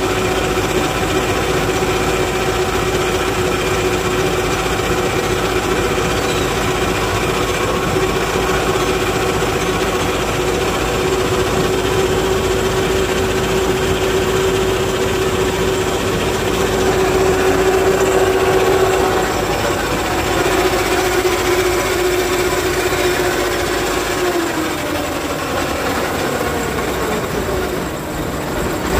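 Heavy tow truck's diesel engine running at steady raised revs to drive its hydraulic lifting gear during a truck recovery, with a steady whine. The pitch drops about twenty-four seconds in, then climbs again near the end.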